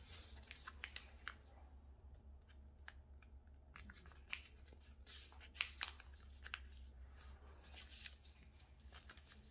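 Sheet of paper being folded and creased by hand: faint crinkling and scattered small ticks, with a few sharper ones about six seconds in.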